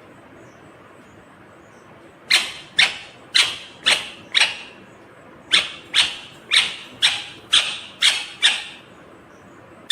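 Green ringneck (rose-ringed) parakeet calling: a string of short, sharp, loud calls about two a second, five in a row starting about two seconds in, a brief pause, then seven more.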